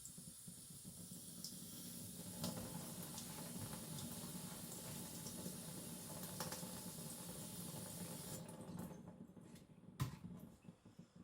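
Running water wetting a sharpening stone, a steady hiss with small clicks and splashes that stops about eight and a half seconds in. A single sharp knock follows about ten seconds in.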